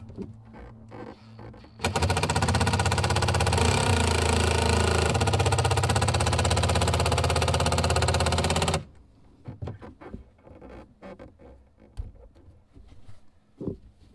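A power driver running steadily for about seven seconds, a fast even mechanical rattle that starts and stops abruptly, as hardware is driven into a boat seat's mounting. Light clicks and handling knocks come before and after it.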